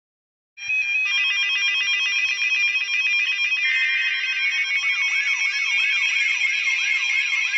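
Loud layered electronic alert tones start suddenly about half a second in: several steady beeping tones switching rapidly together. About five seconds in, a repeating falling whoop joins them, about three per second.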